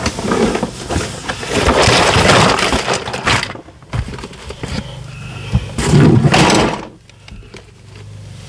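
Rustling and clattering from items being handled and set down, in rough bursts of a second or two with sharp clicks mixed in.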